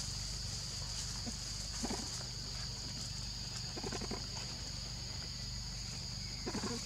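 Young macaques feeding, with a few brief soft calls about two, four and six and a half seconds in, over a steady high-pitched background drone.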